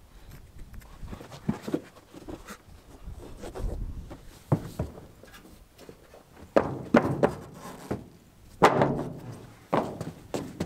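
Heavy rubber horse stall mats being laid and shifted in a pickup truck bed. A run of dull thuds and knocks, the loudest ones in the second half.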